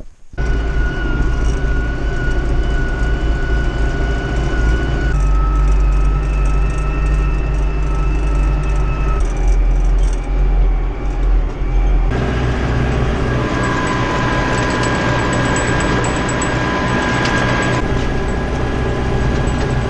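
Farm tractor engine running steadily with a steady high whine over the deep rumble; the pitch of the whine jumps suddenly a few times where shots are cut together.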